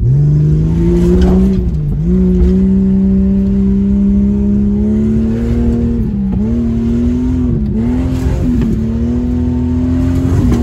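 1996 Jeep Cherokee Sport engine revving up hard and held at high revs as it drives through mud and water, heard from inside the cab. The pitch dips briefly about four times. Muddy water splashes against the windshield.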